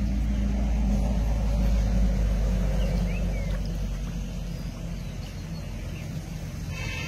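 A steady low rumble with a hum, loudest in the first half and easing off after that.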